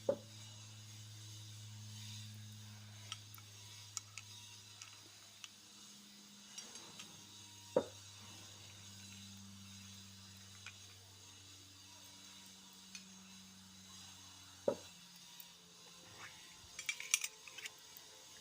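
Miniature toy kitchenware pieces clicking and clinking faintly as they are handled. There are a few sharper taps spread apart, and a quick run of clinks near the end.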